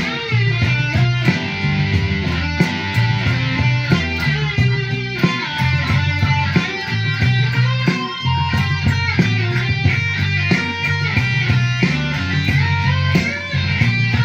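Single-cutaway electric guitar playing a lead line with sliding and bent notes over a backing track of bass and drums.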